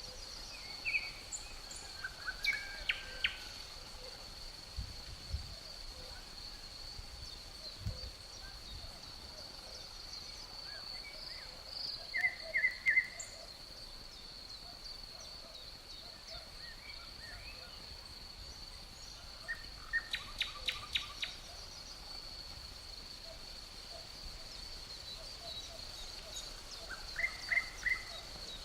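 A steady, high insect drone of crickets, with a bird calling in short runs of quick chirps about five times.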